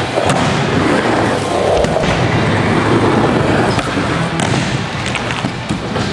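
Skateboard wheels rolling on ramps, with several sharp board clacks and slams, in a large indoor skatepark hall.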